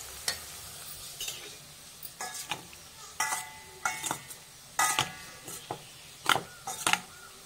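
Onions sizzling faintly in oil at first, then a metal spoon clinking and scraping against a stainless steel colander as boiled macaroni is stirred: a string of sharp clinks, several of them ringing briefly.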